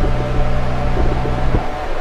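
Background music with steady held tones that cuts off about one and a half seconds in, leaving wind noise on the microphone and a few knocks.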